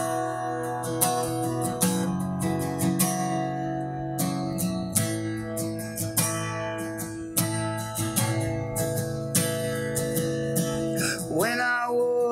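Solo acoustic guitar strummed in steady chords, an instrumental break in a slow country song. A man's singing voice comes back in near the end.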